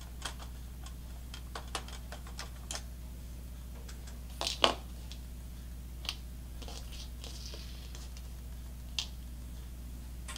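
Scattered light clicks and taps of a small screwdriver and screws against the plastic casing of a PS3 Blu-ray drive as its top cover screws are taken out, the loudest a quick double tap about four and a half seconds in. A steady low hum runs underneath.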